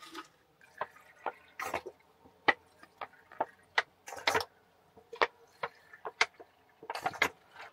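Scattered sharp clicks, taps and clinks from dishes and a plastic water bottle being handled at a small kitchen counter, with a few drip-like splashes of water.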